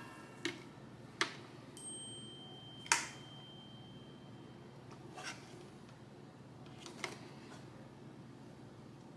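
Hard plastic housing of a Presto Pizzazz Plus rotating pizza oven being handled and turned over: about five light clicks and knocks, the loudest about three seconds in.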